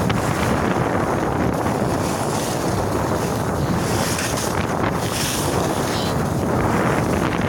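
Wind buffeting a phone's microphone during a fast downhill ski run, a steady rushing roar. Skis hiss over the snow, louder about halfway through.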